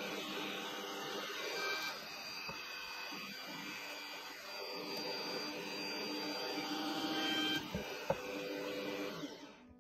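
Bosch bench drill press running steadily, its bit drilling into a metal part of a rat trap. A sharp click comes about eight seconds in, and the running stops just before the end.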